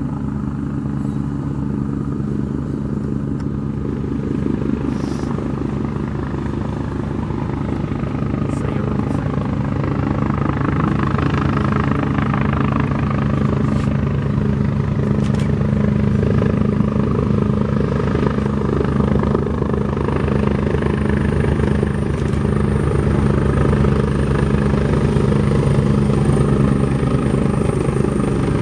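Airbus H175 helicopter approaching: a steady rotor beat and turbine sound, growing gradually louder, with a thin high whine joining about two-thirds of the way in.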